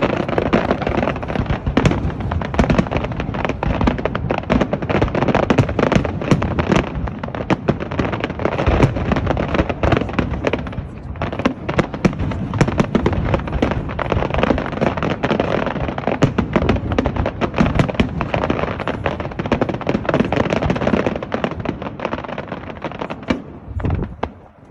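Fireworks display: a dense, continuous barrage of bangs and crackling bursts that thins out and dies away near the end.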